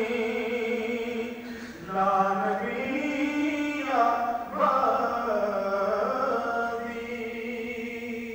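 A solo voice chanting a religious recitation in long, drawn-out melodic phrases. Each note is held for a second or more and glides between pitches, with short breaths between phrases about 2 and 4.5 seconds in.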